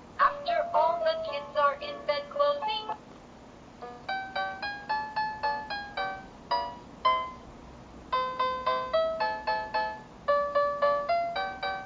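Electronic children's sound book playing a synthesized English nursery-rhyme tune: a line sung by a synthetic voice for about the first three seconds, then, after a short pause, a keyboard-like melody of separate, evenly paced notes.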